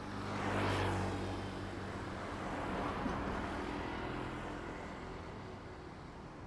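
Road vehicles passing on a city street: one goes by close, loudest under a second in, and a smaller swell follows about three seconds in, over a steady low engine hum.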